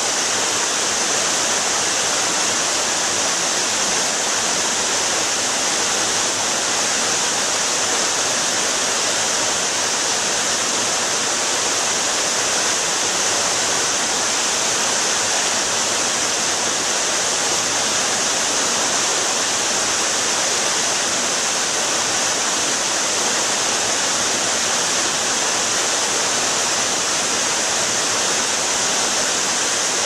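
Water pouring in sheets off an artificial rock waterfall into a swimming pool: a steady, even rush of splashing water with a bright hiss.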